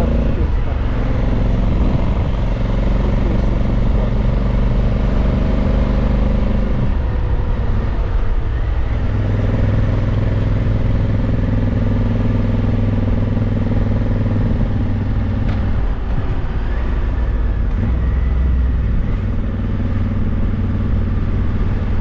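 Honda CRF1100L Africa Twin's 1084 cc parallel-twin engine running while the motorcycle is ridden, over steady wind and road noise. The engine note breaks off about seven seconds in and settles to a new steady note about two seconds later.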